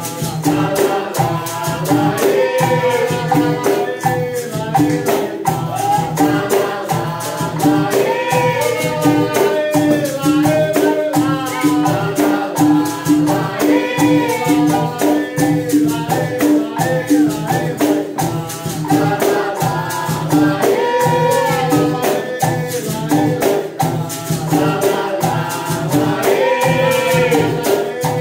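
Capoeira angola roda music: berimbaus shaken with caxixi rattles, pandeiros and an atabaque drum keep a steady, dense beat, while voices sing repeated phrases over it. A held note sounds from about ten to sixteen seconds in.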